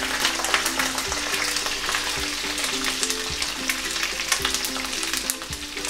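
Garlic sizzling in hot oil in a pan with a dense crackle, just dropped in and frying toward a light golden brown.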